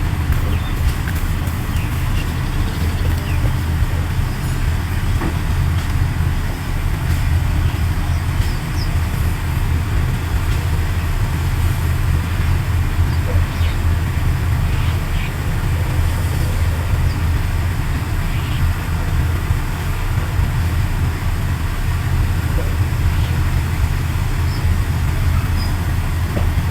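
Large bulldozer's diesel engine running steadily with a low rumble, with a few faint ticks and clinks over it.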